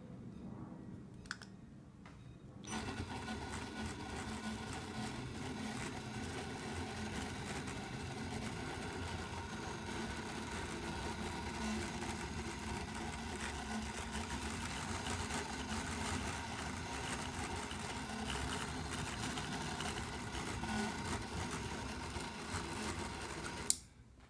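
Came-TV 7500 three-axis gimbal's brushless motors buzzing steadily with a dense set of even tones. The buzz starts a few seconds in and cuts off suddenly near the end. It is the motors oscillating on a gimbal with calibration trouble.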